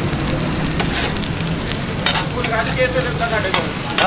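Egg-soaked bread slices frying in butter on a flat griddle (tawa), a steady sizzle.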